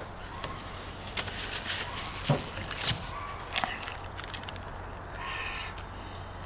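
A small plastic single-serve condiment packet being handled and torn open: a few sharp crinkles and snaps between about one and four seconds in.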